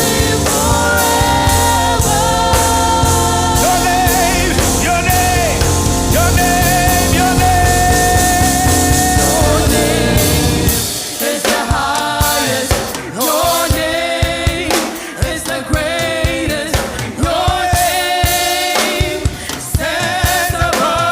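Gospel praise song with lead singer and choir over a band. About halfway through, the bass and full band drop out, leaving the voices over light percussion.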